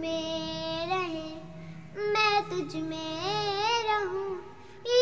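A young girl singing a Hindi worship song to Jesus, holding long sung notes that bend slightly in pitch, in two phrases with a short breath between them.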